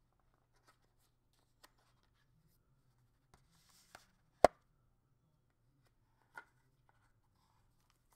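Paperboard Apple Pencil box being handled: a few faint taps and a brief papery rustle, then one sharp tap about four and a half seconds in as a piece is set down on the table, and a softer tap about two seconds later.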